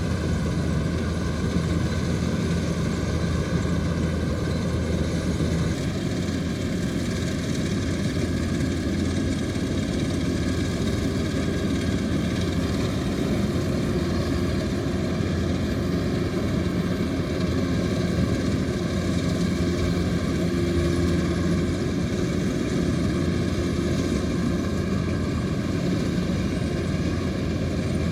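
Kubota DC-105X combine harvester running steadily under load while cutting rice: a continuous diesel engine drone, shifting slightly in tone about six seconds in.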